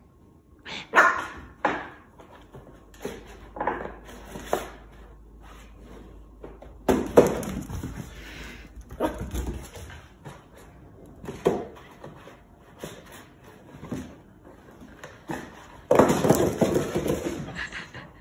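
Puppy barking in short, separate yaps, about a dozen spread out over the stretch, with a longer, denser run of sound near the end.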